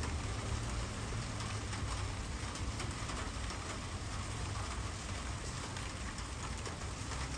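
Steady rain falling: an even hiss with faint scattered drop ticks, over a low rumble.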